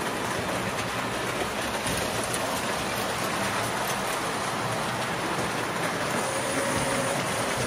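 Toy trains running on metal track: a steady rattling rumble of wheels and motors as a steam locomotive with stock cars and a caboose passes close by.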